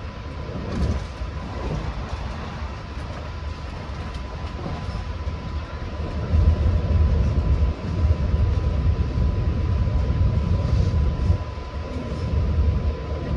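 Long Island Rail Road commuter train running at speed, heard on board: a steady low rumble of wheels on rail with a thin, steady high whine, the rumble growing louder about halfway through.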